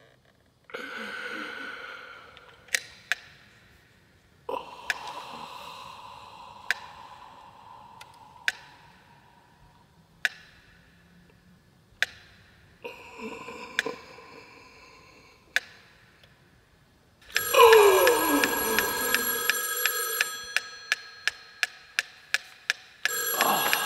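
A string of ringing sounds that start suddenly and die away, with sharp single clicks every one to two seconds between them. About seventeen seconds in comes a loud, bell-like ringing with a falling tone beneath it. After that a pyramid metronome ticks about three times a second.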